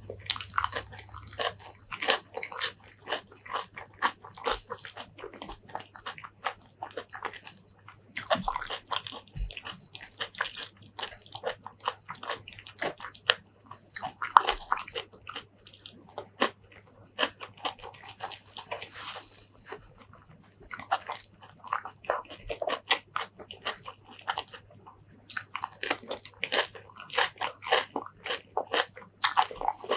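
Close-miked eating: crisp crunches and chewing, in dense runs with a couple of brief pauses, as raw green vegetable stems and handfuls of curry and rice are bitten and chewed.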